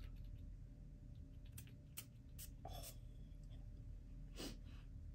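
Quiet handling of a perfume bottle and its cap: a few faint clicks in the first half, then two short soft hisses, the second about four and a half seconds in.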